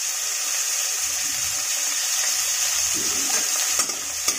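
Chopped onion, cumin and green chilli frying in hot mustard oil in a steel kadai: a steady sizzle, with a couple of light spatula knocks against the pan near the end.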